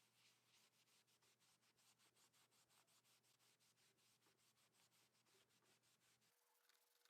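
Singer 12K hand-crank sewing machine running, very faint: an even clicking of about five to six strokes a second that stops about six seconds in.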